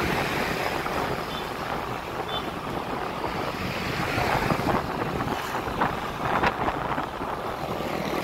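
Motorcycle riding along a road in traffic: steady wind rush on the microphone over engine and road noise.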